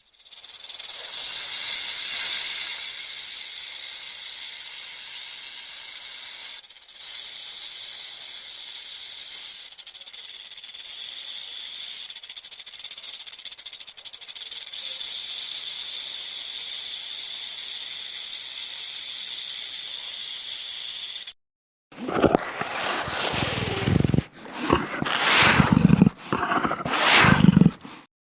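Made-up creature sound effects: a long, steady, high hiss lasting about twenty seconds, which cuts off suddenly. After a short gap come several loud, low, rough calls in quick succession.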